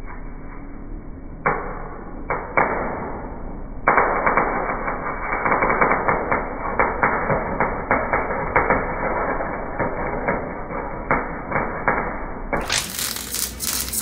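Electric arc welding on steel, crackling and spitting. There are two short bursts of welding, then a long continuous run of crackle with sharp pops from about four seconds in.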